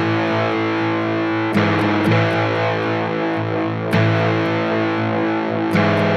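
Background music: a band track led by distorted electric guitar.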